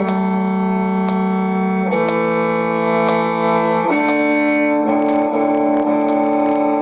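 Bowed string instrument playing slow double stops, two strings sounding together on long held notes that change about every two seconds.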